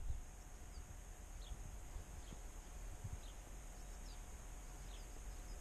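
Faint, short high chirps, each falling in pitch, about one a second, from a small animal, over a low rumble.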